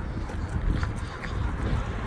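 Wind buffeting a phone's microphone while walking, with a few faint footsteps on gravel.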